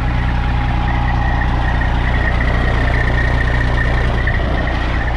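Straight-piped Detroit Diesel Series 60 inline-six turbodiesel idling steadily with its muffler deleted: a loud, even, low rumble with a thin high whine above it.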